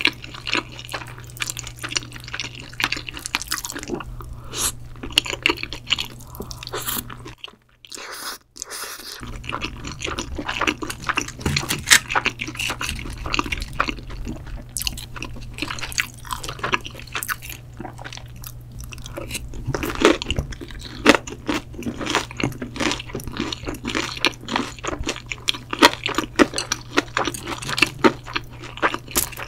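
Close-miked eating sounds: wet chewing and crunchy bites of crispy fried boneless chicken, crackling all through, with a brief dropout about a quarter of the way in. A steady low hum runs underneath.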